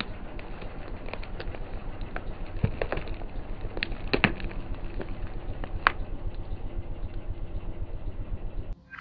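Car engine idling with a steady, pulsing hum while the tyre rolls over small plastic caps, which give a few sharp cracks and pops about three to six seconds in. The hum drops away suddenly just before the end.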